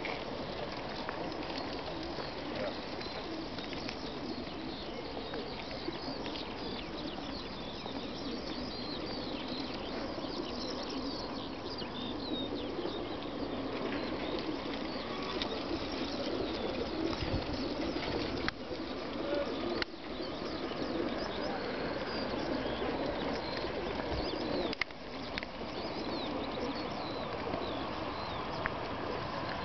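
A large mass of racing pigeons crated in transport trucks, cooing and fluttering their wings in a steady, dense chatter while they wait to be released.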